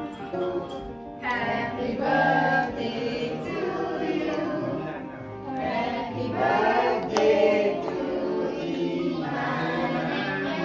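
Music with several voices singing.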